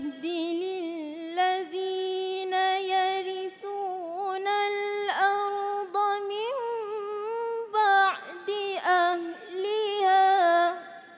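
A woman reciting the Quran in the melodic tilawah style: long held notes with wavering ornaments, sung in phrases with short breaths between them. The voice stops shortly before the end.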